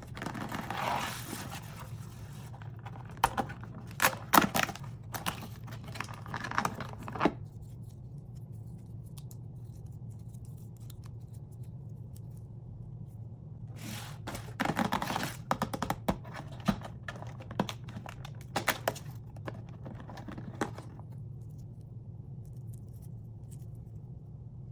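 Hands tearing open the cardboard and wrapping of a toy advent calendar, in two spells of crackling, tearing and scraping with a quiet pause between them. A steady low hum runs underneath.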